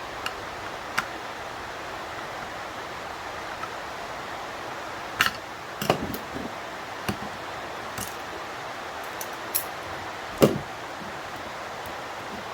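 Scattered sharp clicks and knocks of small metal and plastic parts being handled while an old electronic unit is taken apart, over a steady hiss; the loudest knock comes about ten seconds in.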